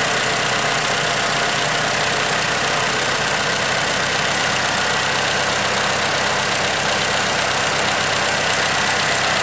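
Toyota 2AR-FE 2.5-liter four-cylinder engine idling steadily.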